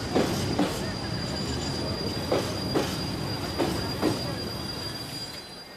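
Steam train rolling slowly along a station platform: a steady rumble with a thin, high wheel squeal and short knocks coming in pairs, fading out near the end.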